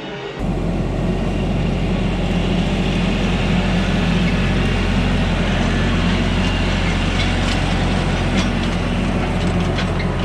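Tractor diesel engine running steadily under load, with light clicking rattles joining near the end.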